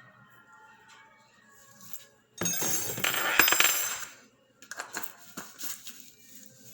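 Handling dry ingredients at a mixing bowl: a loud rustling scrape lasting under two seconds, about two and a half seconds in, then a quick run of light clinks from a measuring spoon against the bowl.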